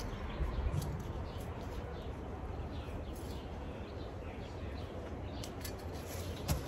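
Hand trowel scraping and digging in loose garden soil, with a few soft knocks, while birds chirp in the background.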